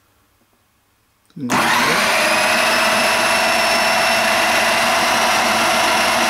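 Breville food processor switched on by its dial: a short click about a second and a half in, then the motor starts and runs steadily with a high whine. It is puréeing cooked carrot, celery and sweet potato in stock.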